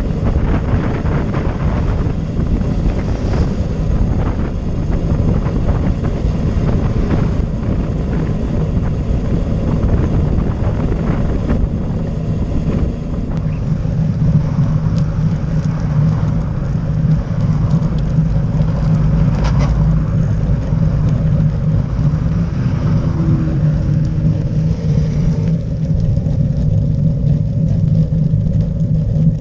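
Wind rushing over a bicycle-mounted camera's microphone together with tyre noise on asphalt, heard throughout. A car passes close alongside, and its steady engine hum is heard for several seconds about halfway through.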